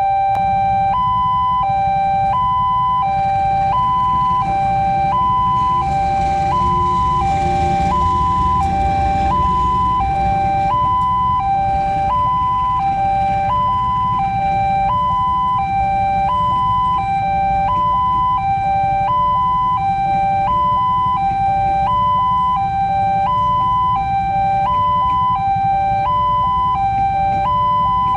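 Railway level-crossing warning alarm sounding a steady two-tone hi-lo wail, alternating between a higher and a lower tone about every half second, just like an ambulance siren. A low rumble runs underneath and swells between about six and ten seconds in.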